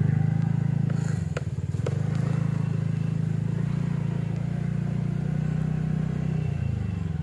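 Motorcycle engine running steadily at low speed over a rough, potholed dirt road, with a few light knocks and rattles from the bumps about a second in.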